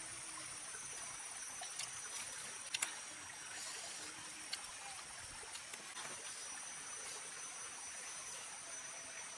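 Insects chirring steadily in a high, even drone. A few brief sharp clicks come through, the loudest about three seconds in.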